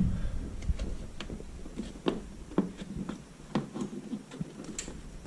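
Scattered light clicks and taps, about a dozen at irregular intervals, from small hard objects being handled.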